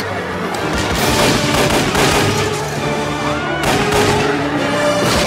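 Gunfire in a film soundtrack: a rapid volley of shots over loud film score music, the shots coming thickest from about three and a half seconds in.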